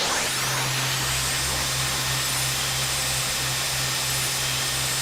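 Sound-designed Rasengan effect: a steady, dense rushing whir with a low hum beneath it, held at an even level.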